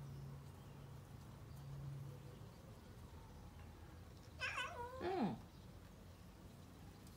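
Domestic cat meowing about halfway through: two quick calls run together, the second sliding down in pitch.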